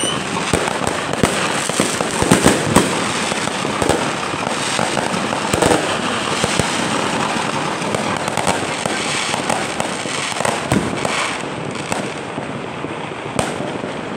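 Many fireworks going off at once: a continuous crackle of pops and bangs, with a few louder bangs about two to three seconds in, thinning out near the end.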